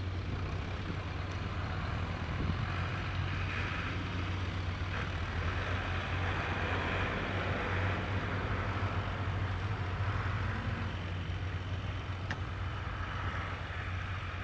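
Tractor diesel engines running steadily, with a low hum and a broader engine noise that swells for a few seconds in the middle.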